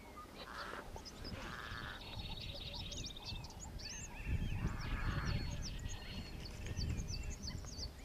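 Wild birds calling in dry bush: many short chirps and whistles from several birds, with a few harsh buzzy calls, one within the first second and one about four and a half seconds in. A low rumble swells under them around the middle.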